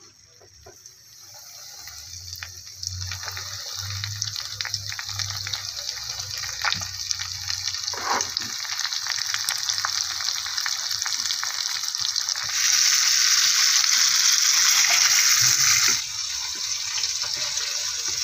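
Semolina-coated fish shallow-frying in hot oil in a pan: a steady sizzle that swells over the first two seconds as the fish goes in. It grows louder for a few seconds about two-thirds of the way through, then eases back slightly.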